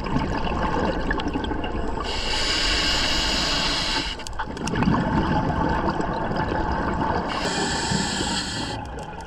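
Scuba diver's regulator breathing underwater: a long hissing inhale about two seconds in, a bubbling, gurgling exhale after it, and a second hissing inhale near the end.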